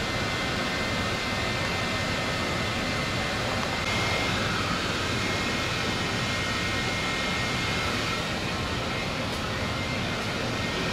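Steady rushing drone of a cruise ship's machinery and ventilation, with a faint high whine, as the ship manoeuvres to its berth.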